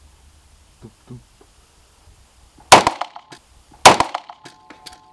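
Two pistol shots about a second apart in an indoor shooting range, each a sharp crack with a short echo. Light clicks and a faint ringing follow the second shot.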